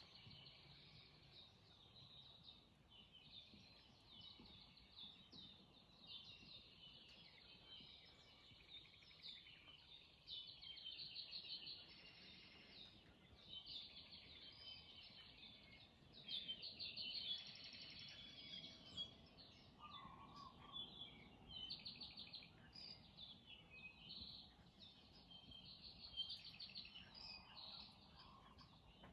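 Faint chorus of many birds chirping and trilling continuously, with louder bursts of calls here and there, over a low background hum.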